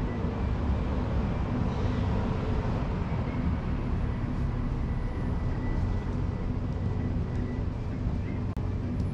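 Steady outdoor rumble heaviest in the lows, such as wind on the microphone or distant traffic, with faint thin tones above it and no distinct events.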